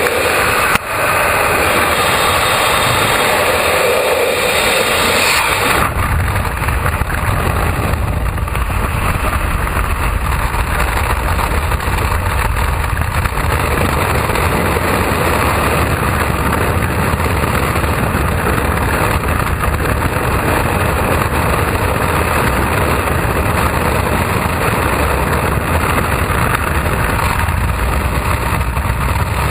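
Loud, steady rush of freefall wind buffeting a helmet-mounted GoPro's microphone. About six seconds in the low rumble grows heavier and stays.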